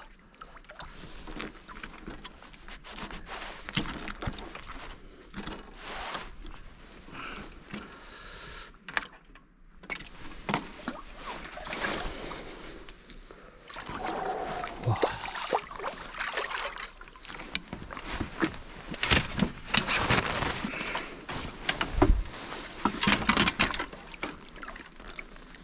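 A hooked Israeli carp splashing at the water's surface as it is played in and scooped into a landing net, with sloshing and dripping water. The splashing is loudest and busiest near the end, as the fish goes into the net.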